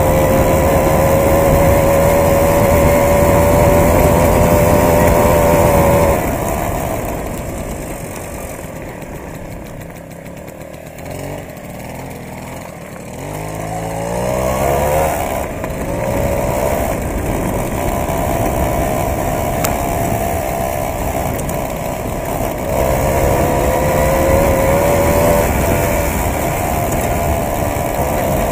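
Tomos moped's small two-stroke engine running under way on a gravel road, heard through a gimbal camera's built-in microphone with road and wind noise. About six seconds in, the engine note drops away and stays low for several seconds. It then climbs back up in a few quick rising steps around the middle and runs steady again, with another rise late on.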